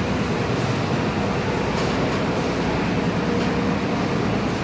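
Coach bus's diesel engine running with a steady low throb as the bus creeps forward onto the ferry.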